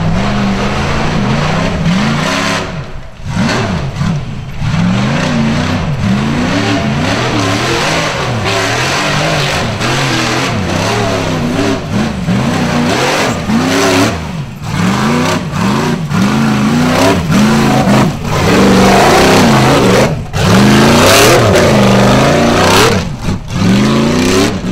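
Rock bouncer buggy's engine revving hard again and again while climbing over rocks under load. The pitch rises and falls with each burst of throttle, and it drops off briefly a few times. It is loudest in the second half.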